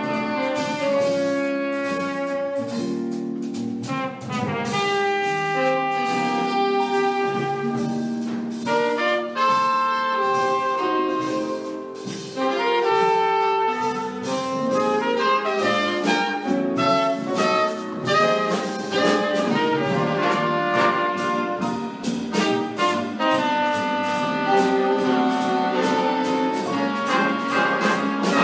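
Jazz big band playing: trumpet, trombone and saxophone sections in held chords that change every second or so, over drums, bass, guitar and piano, with steady cymbal and drum strokes. Recorded from the hall rather than through the sound board.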